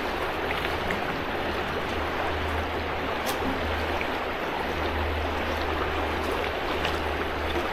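River current rushing steadily, with a low steady hum underneath.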